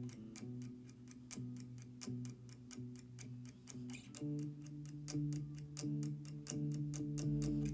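Relaxing instrumental background music: a steady light ticking beat, about four ticks a second, over held low notes that change to a fuller chord about four seconds in.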